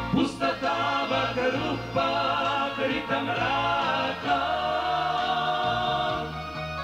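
Choir singing a hymn over steady low accompaniment, with one long held note in the second half.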